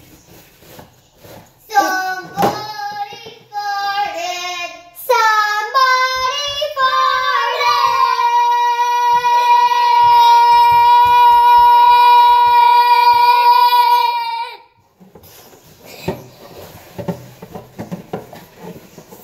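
A young girl singing: a few short sung phrases, then one loud, high note held steady for about seven seconds that cuts off suddenly.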